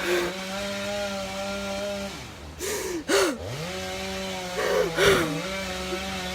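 Chainsaw engine running at a steady pitch, dropping off about two seconds in and climbing back up to speed a second or so later. A few short, louder noisy bursts sit on top, the loudest about five seconds in.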